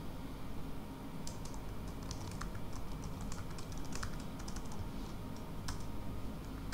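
Typing on a computer keyboard: irregular runs of quick keystrokes, with one sharper key press near the end, over a low steady hum.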